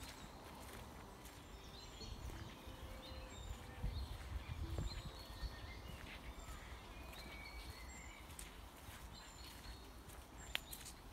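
Woodland birdsong: several small birds chirping, with one short high note repeated about once a second. Beneath it are the walker's footsteps on the dirt path and a low rumble, loudest about four to five seconds in.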